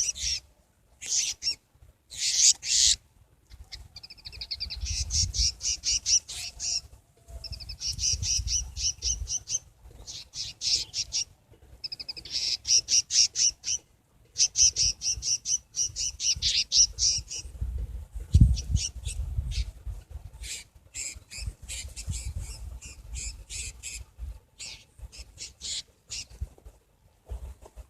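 Prinias (ciblek) calling: runs of fast, repeated high trilling chirps that break off and start again many times. A low rumble runs underneath, with a thump a little past the middle.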